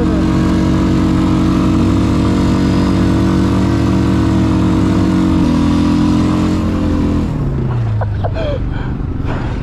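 ATV engine running steadily at high revs, its pitch shifting about halfway through, then the revs fall away about seven seconds in and it runs on quieter and lower.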